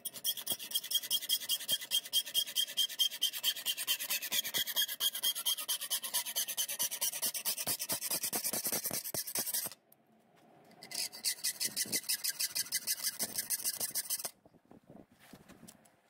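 Hacksaw cutting through a metal spoon handle clamped in a vise, in fast, even back-and-forth strokes. The sawing pauses for about a second roughly ten seconds in, runs again for a few seconds, then stops, leaving only a few faint knocks.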